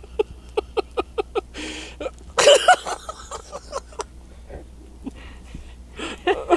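Human laughter: a run of short, evenly spaced "ha" bursts, about four a second, broken by a louder vocal outburst about two and a half seconds in.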